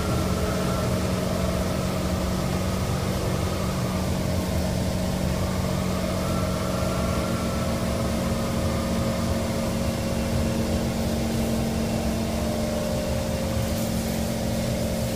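Interior running noise of a Kawasaki Kinki Sharyo C151 train as it pulls into the station: a steady rumble and hum with a fainter whine from the traction equipment that dips and then rises again in pitch in the middle.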